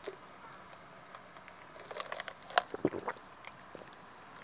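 Faint mouth sounds of someone tasting a creamy lavender drink: a quick run of small clicks, sips and swallowing noises in the middle, over quiet room tone.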